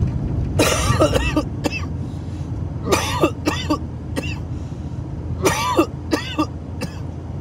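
A man coughing in three short bouts, about one, three and five and a half seconds in, over the steady low road and engine rumble inside a moving car.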